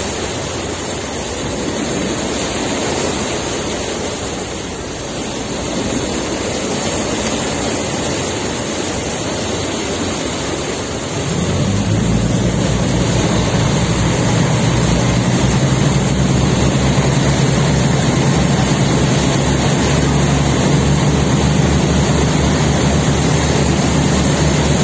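Sea water rushing and churning alongside a moving RoRo ferry, over the drone of the ship's diesel engines. About eleven seconds in, a low engine hum comes up louder and stays steady.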